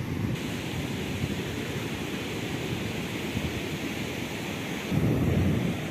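Wind buffeting the microphone over the steady hiss of ocean surf, with a louder rumble of wind about five seconds in.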